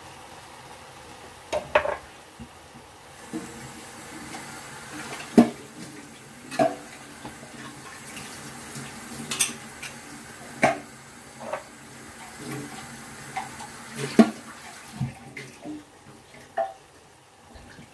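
Thick tomato and cashew sauce simmering in a roasting pan, its bubbles bursting in irregular loud plops every second or two over a steady low hiss.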